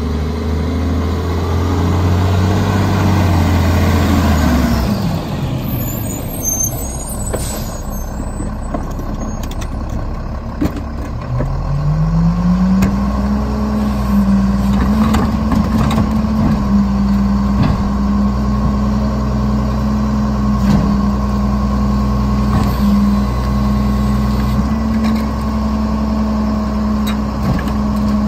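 Mack MR rear-loader garbage truck's diesel engine slowing as the truck pulls up, with a short air-brake hiss. About eleven seconds in the engine revs up and holds a steady raised speed while the rear cart tipper runs, with knocks from the cart being handled.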